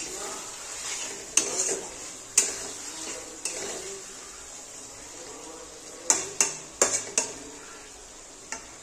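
Wooden spatula stirring a thick chicken liver and gizzard curry in a metal kadai, scraping through the gravy and knocking against the pan in scattered sharp taps, with a quick run of taps about six to seven seconds in. A low sizzle of the simmering gravy runs underneath.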